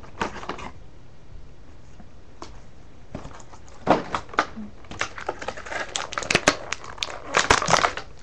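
Irregular clicks and crackles of plastic toy packaging being handled and opened, in quick clusters from about three seconds in.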